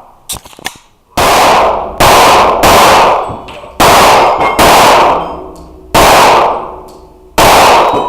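Rapid pistol shots, seven in all, the first about a second in, fired as quick pairs and singles, each leaving a long echoing tail in an indoor range.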